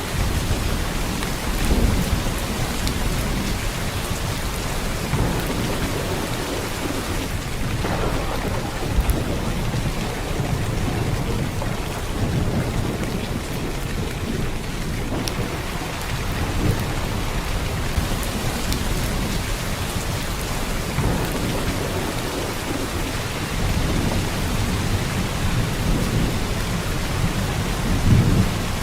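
Heavy rain pouring steadily, a dense even hiss of downpour with a strong low rumble beneath it that swells briefly about two seconds in and again near the end.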